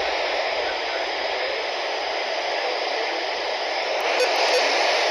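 Weather radio receiver giving out steady radio static, a loud even hiss with no broadcast voice audible through it, as the station's signal fades out.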